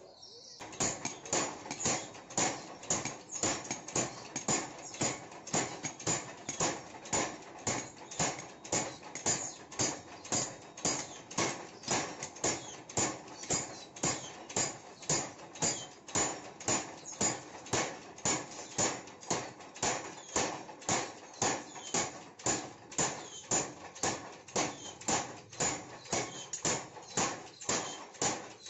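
Mechanical power hammer forging a red-hot steel spade blank: a steady, even run of heavy blows, about one and a half a second, starting within the first second.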